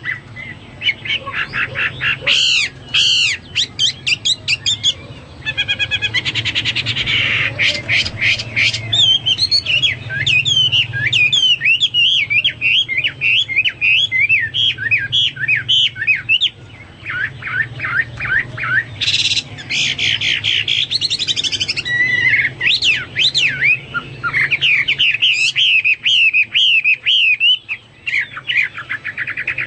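Chinese hwamei (melodious laughingthrush) singing a long, loud, varied song of rapid whistled notes, fast trills and quick up-and-down phrases with hardly a pause.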